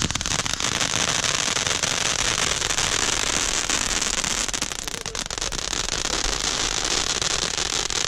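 Ground firework fountains spraying sparks, giving a dense, steady crackle.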